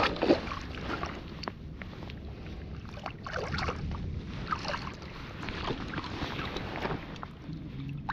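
Water splashing and sloshing as a netted pink salmon is handled in the shallows and lifted out, with irregular small splashes and drips.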